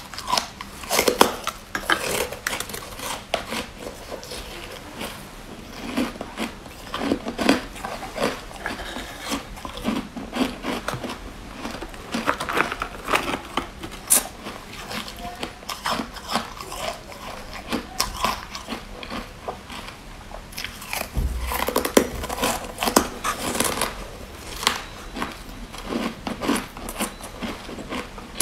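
Carbonated ice being bitten and chewed, the porous frozen ice crunching and crackling between the teeth in many irregular bites.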